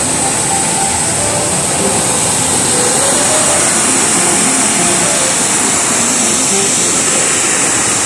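Iguaçu Falls heard up close: the loud, steady rush of a massive volume of water pouring over the falls, with no let-up.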